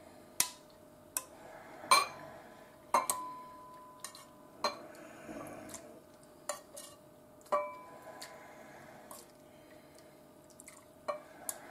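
Metal ladle clinking against a stainless steel bowl as miso soup with tofu and wakame is ladled out. About a dozen sharp clinks come at uneven intervals, some ringing briefly, with soft slops of liquid between them.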